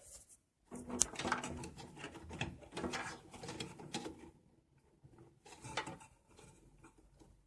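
Hands working among the cables inside a desktop PC case, reaching around to the main motherboard power connector: rustling wires and small clicks and rattles of plastic and metal, busiest for the first few seconds, then a few scattered clicks.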